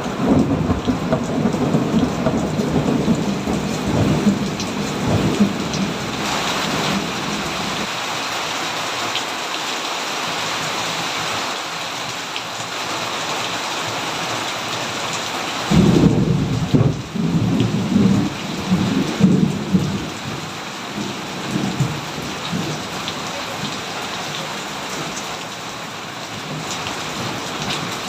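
Thunderstorm: steady rain falling throughout, with thunder rumbling for the first several seconds. A sudden loud peal of thunder comes a little past halfway and rolls on for a few seconds before the rain is left alone.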